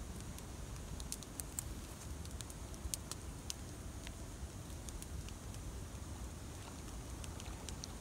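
Wood campfire crackling, with irregular sharp little pops, over a steady low rumble of wind on the microphone.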